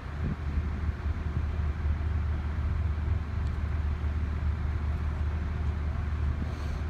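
Steady low engine rumble running without change.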